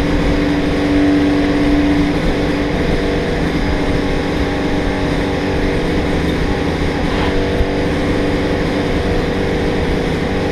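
Small engine running steadily at one speed, sounding like a little chainsaw. A strong high tone in it drops away about two seconds in.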